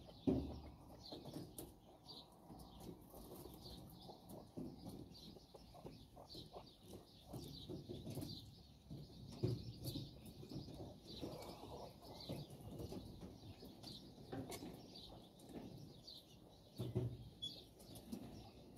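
Japanese quail giving short, soft, falling chirps over and over. A few brief low thumps or rustles come through near the start, about halfway and near the end.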